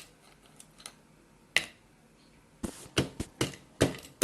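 A few sharp clicks of hard pieces being handled, then a pestle pounding dried cocoyam (achicha) in a mortar, starting a little past halfway as regular knocks about three a second.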